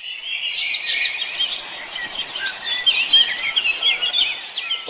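A dense chorus of small birds chirping and whistling at once: many quick, overlapping notes that rise and fall in pitch.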